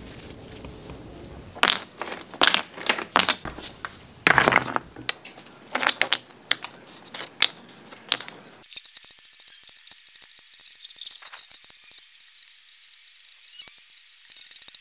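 Fired clay bricks knocking and clinking against each other and the concrete as they are handled and set down: sharp, uneven knocks through the first half, then only a faint hiss with a few small ticks.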